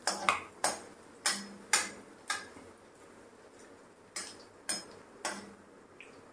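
Metal ladle knocking against a metal kadhai while stirring garlic frying in mustard oil: six sharp clinks in the first two and a half seconds, then three more after a short pause.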